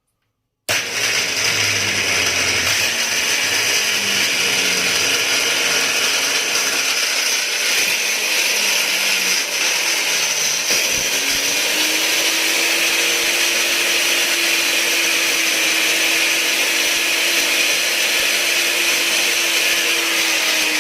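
Crown angle grinder switched on about a second in and running steadily at full speed. It runs loud, with a clatter from its gearbox that the repairer puts down to ruined gears and a worn shaft bushing and bearing.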